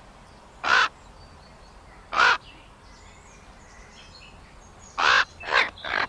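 Crow cawing: single caws about one and two seconds in, then three caws in quick succession near the end.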